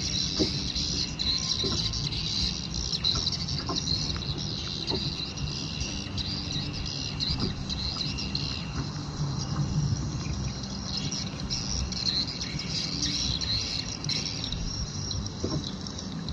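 Birds chirping over a steady chorus of insects, with a low rumble beneath and a few faint clicks.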